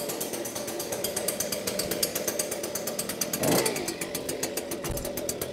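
Stihl BG86 handheld leaf blower's two-stroke engine idling with an even pulsing, its spark arrestor screen cut out of the exhaust. A short rising-and-falling tone sounds about three and a half seconds in.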